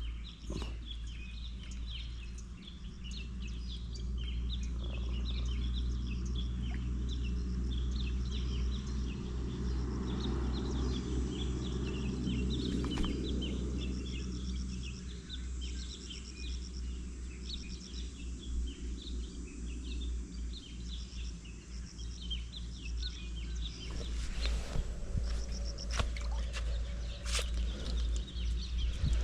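Outdoor ambience of many small birds chirping over a steady low rumble, with a few sharp clicks near the end.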